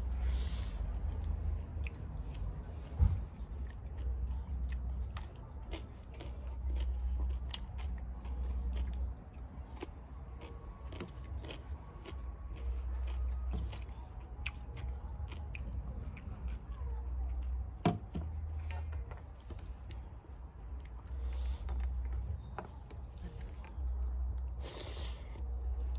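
Close-up chewing and mouth sounds of a person eating rice, dal and curry by hand, with many small wet clicks over a low rumble that comes and goes. Two sharper knocks stand out, one a few seconds in and another a little past the middle.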